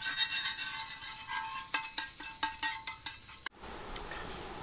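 Chowmein and egg frying in a large wok, sizzling, with a metal spatula scraping and tapping the pan in quick strokes. The sound cuts off suddenly about three and a half seconds in, leaving quieter room sound.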